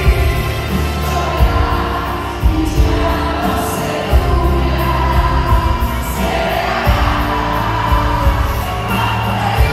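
Live performance of a slow ballad: a female vocalist singing over a large band of violins, trumpets, harp, guitars, keyboard and drums, with a steady bass line and regular drum hits, heard through the arena's sound system.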